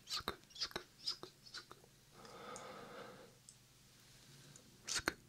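Whispered 'sk sk' mouth sounds and short mouth clicks made right at a binaural microphone: a quick run in the first two seconds, a soft breathy whisper lasting about a second, a pause, then another burst near the end.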